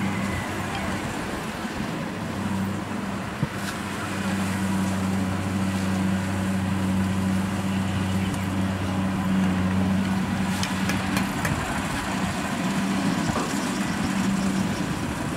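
Kubota DC-70 Plus combine harvester running steadily as it cuts rice, its diesel engine giving a steady note under a wash of machinery noise from the working harvester.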